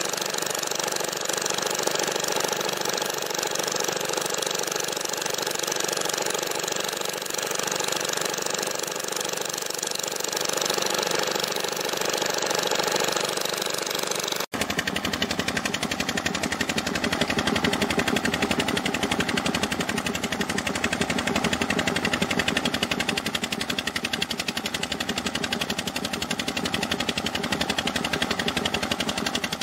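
A small engine driving a sand-suction pump runs steadily with a fast, even chugging. Wet sand slurry rushes out of the pipe into a dump truck bed and water pours off the truck. The rushing is strongest in the first half; after an abrupt change about halfway through, the engine's rapid pulsing dominates.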